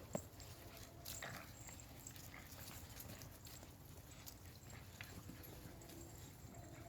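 Faint scattered taps and rustles of dogs and puppies moving about and playing, with no barking.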